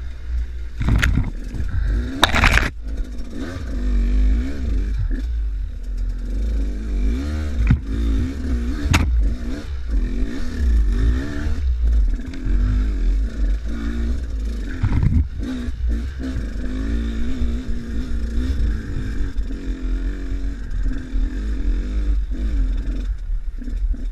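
KTM enduro dirt bike engine revving up and down repeatedly as it rides a rough, rocky trail, with sharp knocks and clatter from the bike over stones and a heavy wind rumble on the microphone.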